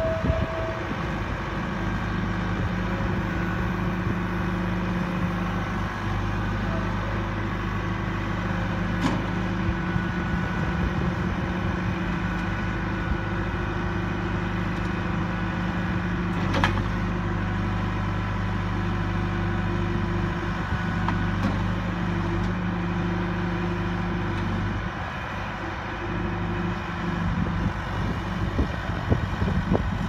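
John Deere 410G loader backhoe's diesel engine running steadily while the hydraulics work the loader and stabilizer; the engine note shifts a few times, dipping briefly near the end. Two sharp clicks, about nine seconds and about seventeen seconds in.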